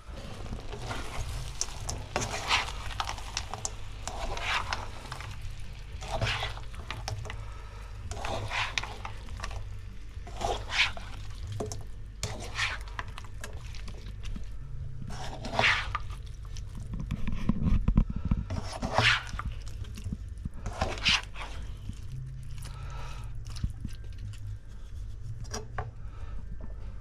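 A black slotted spatula stirring and scraping diced chicken and vegetables around a non-stick frying pan, a sharp scrape every two seconds or so, over a steady low hum.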